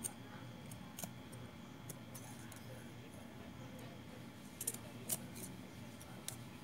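Large tailor's scissors clipping notches into the seam allowance at the corner of a sewn cloth pocket piece: a few short, faint snips spread out, with a small cluster a little after four and a half seconds in.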